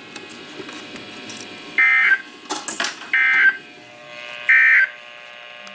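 NOAA Weather Radio SAME end-of-message data tones, heard through a weather radio's speaker: three short buzzy digital bursts about 1.3 s apart, marking the end of the severe thunderstorm warning broadcast. Low radio hiss fills the gaps, with a few clicks after the first burst.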